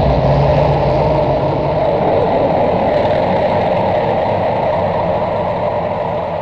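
Industrial horror sound effect: a dense, engine-like mechanical rumble. A low hum in it fades out over the first couple of seconds, and the whole sound slowly dies away toward the end.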